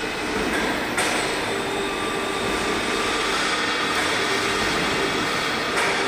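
Overhead crane carrying a metal coil on a C-hook, running with a steady motor whine and rumble. A sharp clank comes about a second in and another near the end.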